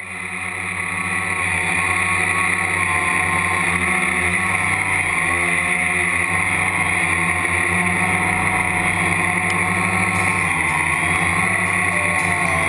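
Quadcopter's electric motors and propellers running, heard from the on-board camera: a steady high-pitched whine that builds over the first couple of seconds as the craft lifts off, then holds steady with slight wavers in pitch.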